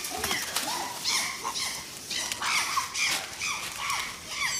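Several chimpanzees screaming and calling over one another: short, high cries that rise and fall, a few each second.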